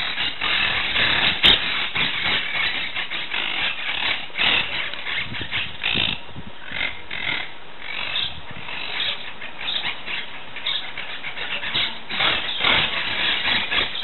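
Several monk parakeets chattering: a continuous run of short, harsh squawks, overlapping one another.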